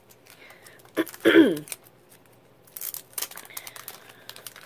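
Cellophane packet crinkling and paper rustling as a bundle of postage stamps is pulled out and handled, in a run of crisp crackles in the second half. About a second in there is a click, then a brief wordless voice sound falling in pitch, the loudest thing heard.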